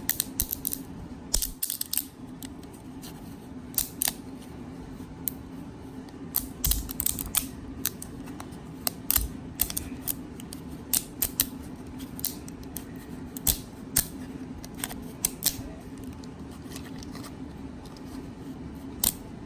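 Irregular sharp clicks and snaps of 3D-printed plastic raft and support material being pried and broken away from a print, over a steady low hum.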